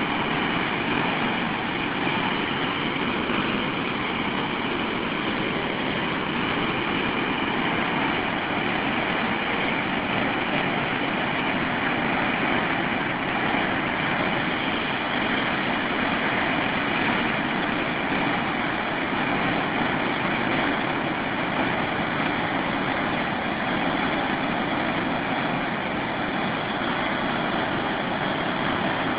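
Mountain river in violent flood, rushing and churning through large standing waves: a steady, loud wash of turbulent water.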